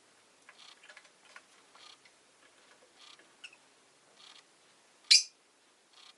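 Rosy-faced lovebird making scattered soft clicks and quiet calls, then one sharp, loud chirp about five seconds in.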